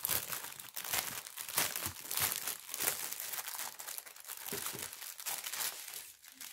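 Thin clear plastic packaging crinkling and crackling as the bag is pulled open and the strip of bagged diamond-painting drills is drawn out. The crackles come thick and irregular, busiest in the first three seconds and sparser after.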